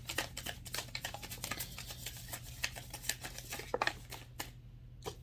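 Oracle cards from the Sacred Creator deck shuffled by hand: a quick, irregular run of soft papery flicks and slaps that thins out near the end, over a low steady hum.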